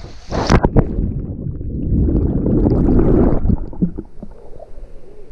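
Water splashing and churning with a heavy rumble, opened by a few sharp knocks about half a second in, and loudest from about two to three and a half seconds in.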